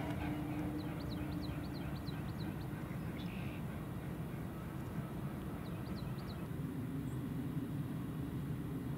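Steady low outdoor rumble, with two short runs of faint, high chirps: about a second in, and again around six seconds in.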